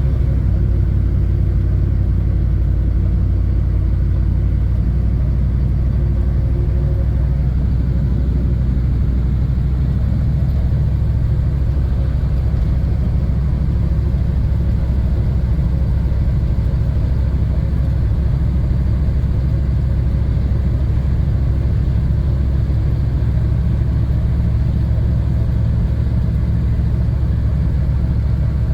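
1985 Chevrolet K5 Blazer's GM 6.2 V8 diesel running steadily with a low rumble as the truck drives along.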